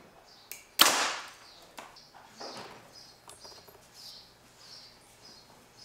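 A Hoyt Ventum Pro 33 compound bow is shot once, about a second in, with a sharp crack as the string releases and the arrow goes through a paper tuning sheet. The crack dies away over about half a second, and a weaker knock follows a second and a half later.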